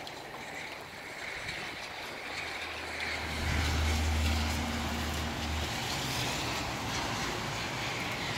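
Gusty wind and rain: a steady rushing hiss that swells toward the middle. A low hum comes in about two seconds in and drops away near six seconds.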